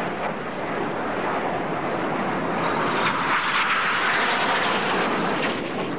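Jet noise from BAe Hawk aircraft with Rolls-Royce Adour engines: a steady rushing roar that swells to its loudest about four seconds in, then eases slightly.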